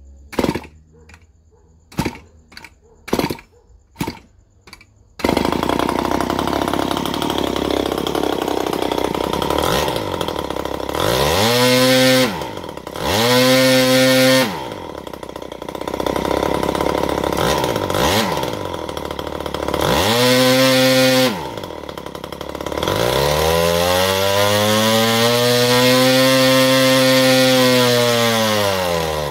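Nakashi 26cc two-stroke brushcutter engine with a propeller, flooded, being flipped over by hand: a few sharp separate clicks for about five seconds, then it catches and runs. It is revved up and down in short blips, with one long rev up and back down near the end.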